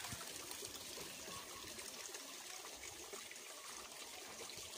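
Water trickling steadily from a tiered stone garden fountain into a rock-lined pond.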